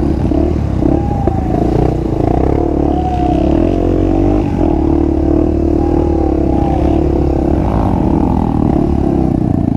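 Honda XR250 Tornado's single-cylinder four-stroke engine running under load on a trail, with an aftermarket exhaust, its revs rising and falling as the rider works the throttle.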